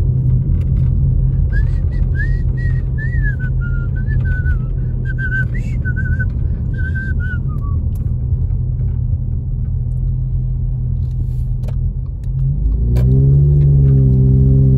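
Steady low engine and road rumble inside a car driving on wet roads. About a second and a half in, someone whistles a short stepping tune for about six seconds. Near the end a deeper pitched drone comes in and the overall sound gets louder.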